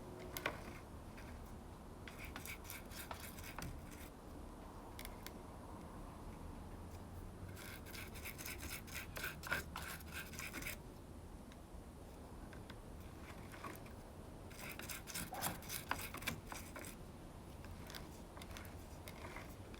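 Marine grease being worked onto chainsaw parts: faint, quick rubbing and scraping strokes in three short spells.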